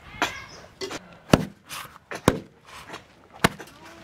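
Metal ladle knocking against a steel plate and kadhai while curry is served: three sharp clinks about a second apart, with softer scraping and sliding between them.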